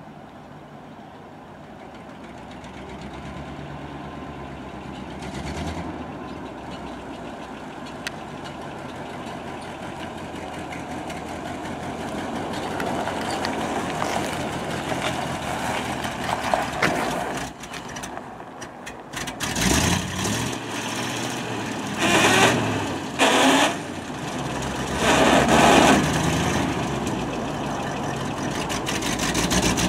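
Ford dump truck's engine running as it drives up, growing louder as it approaches. In the second half come three loud, noisy bursts a couple of seconds apart.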